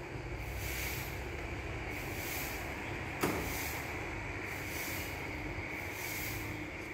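Small vacuum forming machine running with a steady hum and hiss while its heater box sits lowered over the clamped acrylic sheet. A single sharp click comes about three seconds in.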